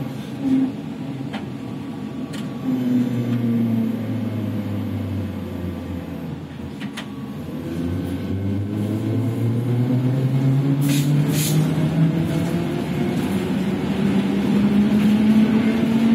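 Ikarus-Ganz 280.94 trolleybus with Ganz electric drive running: the traction motor whine falls in the first second, rises and falls again, then climbs steadily through the second half as it picks up speed. There are a few clicks, and two short hisses about eleven seconds in.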